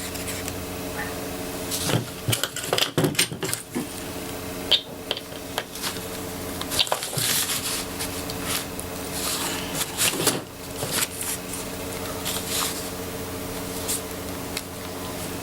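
Irregular clicks and clatter of small airsoft gun parts and hand tools being handled and fitted together, over a steady low hum.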